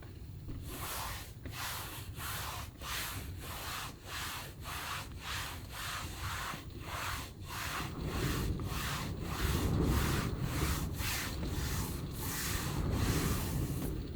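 Rhythmic rubbing or scrubbing strokes, about two a second, over a low rumble that swells in the second half, in keeping with wind and rain on the van.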